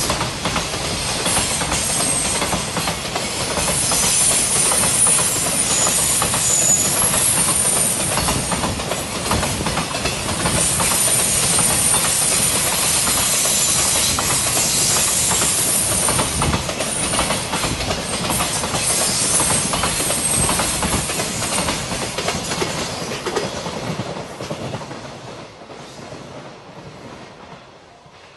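Container flat wagons of a freight train rolling past at close range, wheels clattering rhythmically over the rail joints with thin, high-pitched wheel squeal on and off. The sound fades away as the last wagons pass, about 24 seconds in.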